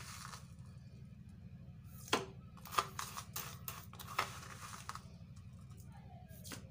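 A metal spoon digging into and scooping caustic soda pearls from a plastic tub: a handful of short scrapes and crunchy clicks, starting about two seconds in, over a steady low hum.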